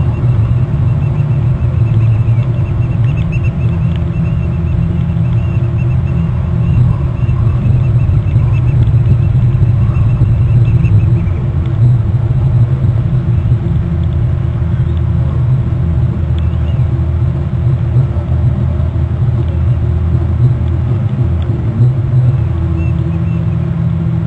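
A steady low rumble with a faint constant hum in it, unbroken throughout.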